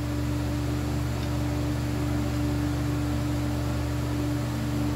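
A steady mechanical hum: a low drone with one held tone above it.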